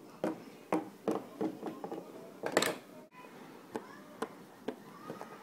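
Plastic toy dog figurines tapped and shuffled across a wooden tabletop as they are walked along: a string of light, irregular clicks and taps, with a louder scuff about two and a half seconds in.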